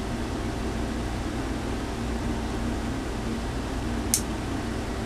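Steady electrical hum with an even fan-like hiss, and one sharp click about four seconds in.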